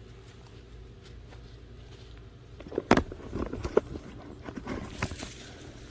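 Digging in garden soil to unearth potatoes: after a quiet start, a run of scrapes and sharp knocks from about halfway, two of them loudest.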